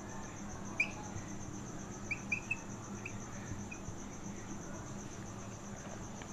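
Marker pen squeaking on a whiteboard in short strokes, about six small chirp-like squeaks in the first four seconds, over a faint, steady, high-pitched pulsing tone.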